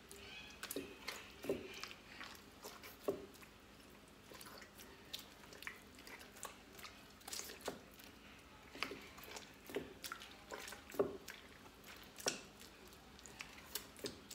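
Hands kneading and squeezing homemade butter in water in a glazed clay dish: irregular wet squelches and drips, with small clicks against the dish. This is the washing of the butter, with fresh water worked through it to rinse out the leftover milk.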